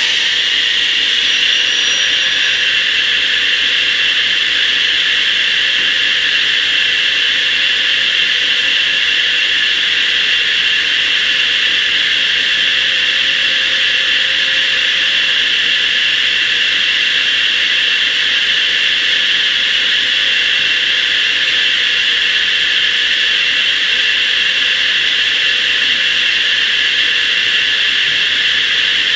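DeWalt radial arm saw with a 16-inch blade spinning free without cutting: a steady, loud whine.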